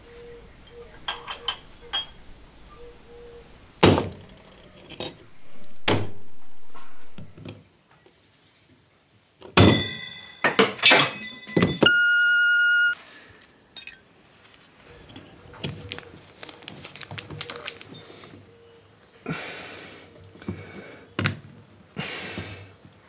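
Workshop sounds from a gearbox rebuild: a hydraulic shop press being worked, with a loud metal thunk about four seconds in and another near six seconds. Later come metal clinks of parts on a wooden bench, a brief one-second beep, and near the end a plastic zip bag crinkling as it is handled.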